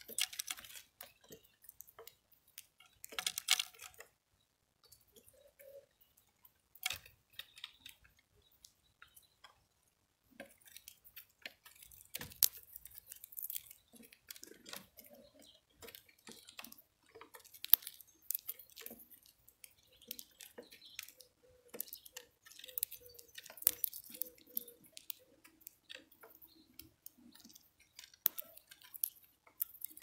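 Small wild birds pecking and cracking seed at a feeder close to the microphone: irregular quick clicks and taps, with a lull of several seconds about four seconds in.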